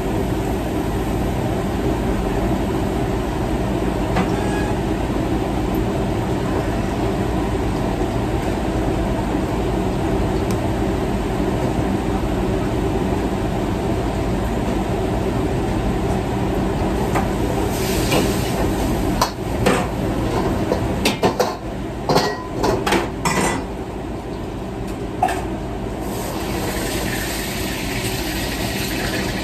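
Commercial kitchen wok burners and exhaust hood running with a steady rush. From about two-thirds of the way in, a spatula and pans clank sharply against metal. Near the end comes the hiss of food sizzling in a hot wok.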